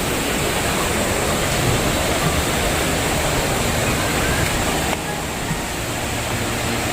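Steady rushing water, like a river or waterfall, a little quieter from about five seconds in.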